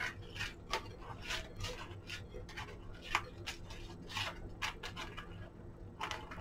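Gimp trim being pulled through the punched holes of a stiff lamp shade, with the shade rustling and scraping in the hands as a string of short, irregular scratchy rustles.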